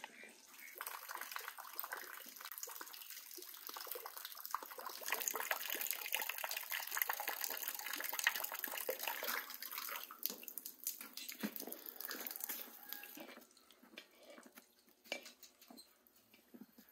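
Water drops, likely snowmelt, falling and splashing into a galvanized metal washtub full of water: a dense, fast patter that drops away suddenly near the end, leaving only faint scattered ticks.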